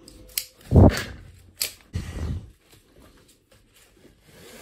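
A few short knocks and clunks from handling a tie-down strap and its buckle, the loudest about a second in, then quieter handling noise.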